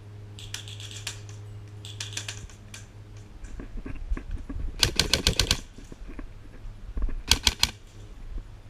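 Airsoft guns firing in rapid full-auto bursts: a longer burst about five seconds in and a short one about two seconds later, with fainter bursts near the start.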